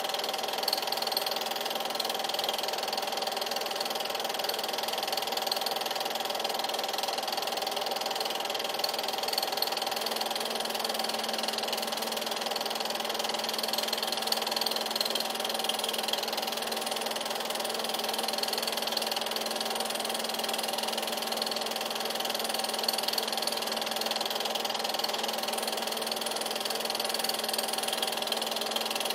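An 8mm film projector running: its motor and mechanism give a steady, unchanging whir.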